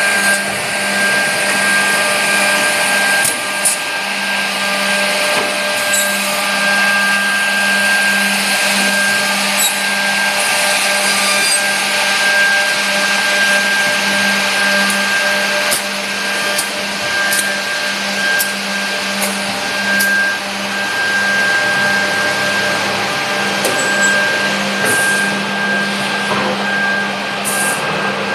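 WoodCraft Viper 7000 automatic edge banding machine with pre-milling and corner rounding running, with a steady motor hum and a constant high whine. Short clicks come and go throughout.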